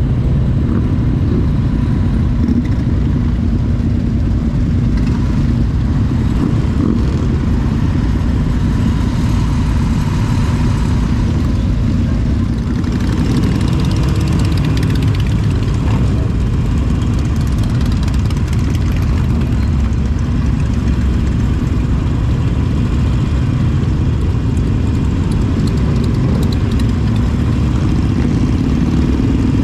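Motorcycle engines running steadily: a loud, continuous low rumble.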